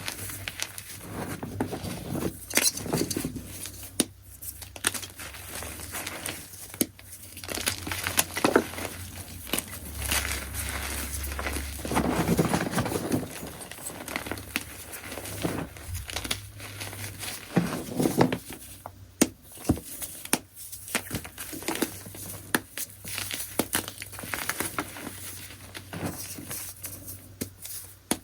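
Chunks of gym chalk being crushed, with an uneven run of crunching and crumbling crackles that gets denser and louder about twelve seconds in.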